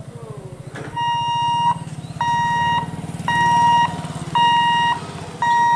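Electric level-crossing gate's warning hooter beeping: a steady tone of about 1 kHz, repeating roughly once a second in beeps just under a second long, starting about a second in, sounding while the boom barrier moves. A low rapid hum runs underneath.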